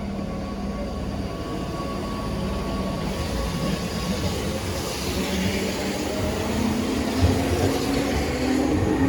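Keihan electric train running, its noise growing slowly louder, with a low motor whine that rises in pitch over the last few seconds as the train gathers speed.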